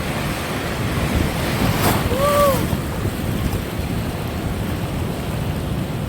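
Ocean waves washing in, with wind buffeting the microphone; a wave surges louder about two seconds in. A short, high call that rises and falls comes just after the surge.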